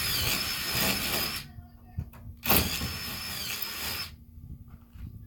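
A power tool running in two bursts with a whining tone: it stops about a second and a half in, then runs again for about a second and a half.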